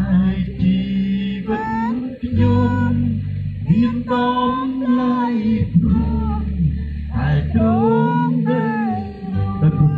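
A man singing a slow melody into a microphone over amplified band accompaniment with steady bass notes, heard through a PA system.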